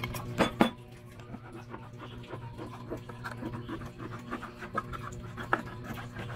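Steel kitchen knife tapping and scraping against the metal lid of a tin can, with two sharp metallic clicks about half a second in, another about five and a half seconds in, and lighter ticks between, over a steady low hum.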